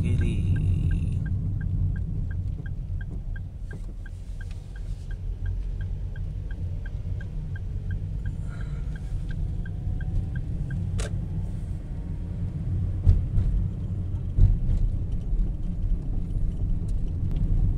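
A car's turn-signal indicator ticking evenly, about three ticks a second, over the steady rumble of the road and engine inside the cabin. The ticking stops about ten seconds in, once the left turn is done.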